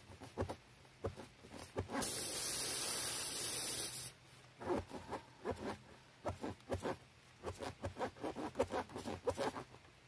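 Tire plug repair on a punctured tire: air hisses hard for about two seconds, then a tool is worked in and out of the puncture in quick repeated scraping strokes, about two or three a second.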